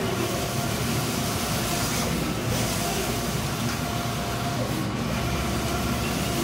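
Maxima HD 3208 wide-format inkjet printer with Konica 512i print heads running a four-pass print job: a steady mechanical whir of the print carriage sweeping back and forth across the media. The sound changes briefly about every two and a half seconds, in step with the passes.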